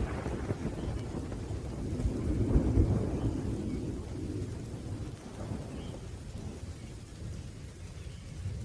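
Thunder rumbling low, swelling about two to three seconds in and then slowly dying away, over a steady hiss of rain.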